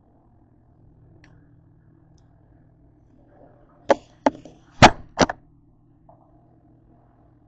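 Four sharp knocks in quick succession, a little past halfway, as the camera is handled and set down against a hard kitchen counter, over a faint steady low hum.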